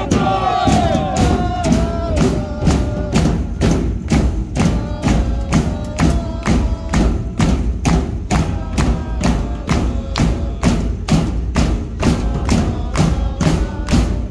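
Supporters' drum beaten in a fast steady rhythm, about three beats a second, with crowd voices underneath.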